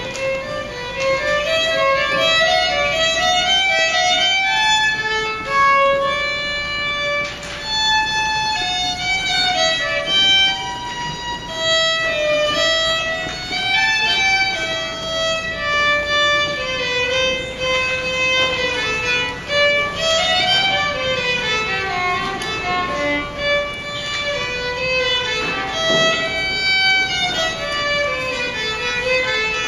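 A violin played with the bow, a single melodic line of held and stepping notes moving up and down.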